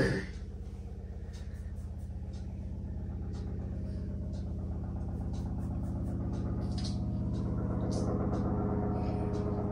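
A motor vehicle's engine running steadily and slowly growing louder, with faint scattered clicks and a sharp knock right at the start.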